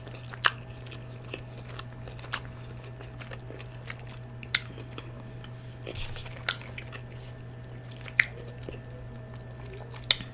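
Close-up mouth sounds of someone eating: chewing with sharp, wet smacking clicks every second or two, over a steady low hum.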